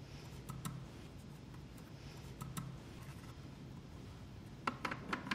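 Faint, scattered clicks and light knocks of plastic and metal parts as the Potato Express electric peeler's arm is adjusted by hand and the potato is seated on its pins, with a cluster of clicks near the end. Its motor is not running.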